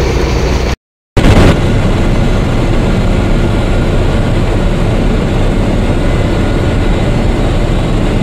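Loud, steady road, wind and engine noise of a vehicle travelling at highway speed. It cuts to silence for a moment about a second in, then resumes.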